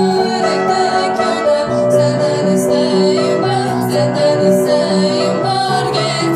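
Upright piano being played, with a voice singing a slow, tender melody over it.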